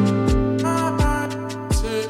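Background music with a steady beat: held bass and synth notes and short melodic phrases over a regular kick drum.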